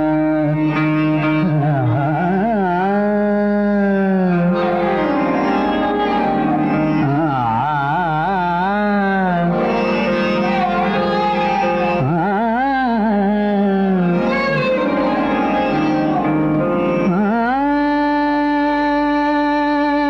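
Hindustani classical male vocal singing a thumri in Raag Des: long ornamented phrases that glide and waver in pitch, over a steady held drone. The voice pauses briefly twice, with the drone carrying on beneath.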